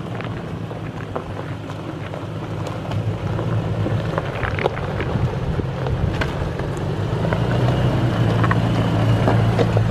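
Toyota Tacoma pickup's engine running at low speed as the truck crawls over a rocky dirt trail, its tires crunching on loose stones. The engine hum grows louder in the second half as the truck comes close.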